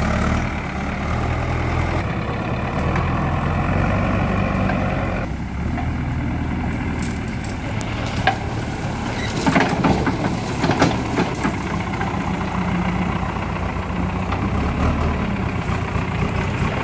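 Diesel engine of a JCB 3DX backhoe loader running steadily as the machine works, with a few sharp cracks and knocks about halfway through.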